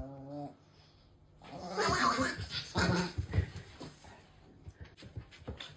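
A dog vocalising: a brief whine-like sound, then about two seconds of rough growling and breathing.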